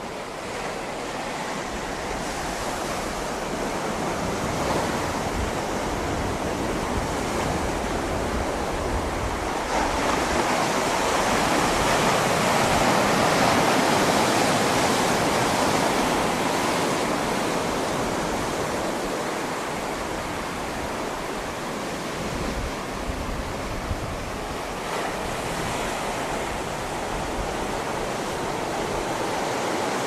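Ocean surf breaking on a rocky shore, a continuous rush of waves and water spilling off flat rock ledges. It swells to its loudest about halfway through, then eases off.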